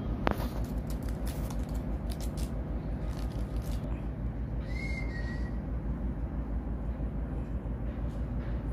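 Steady low outdoor rumble with a short single bird chirp about five seconds in and a sharp click just after the start.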